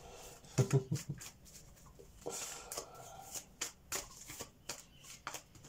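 A deck of tarot cards being shuffled and handled in the hands: a run of irregular soft clicks and rustles of card on card, with a few soft taps about a second in.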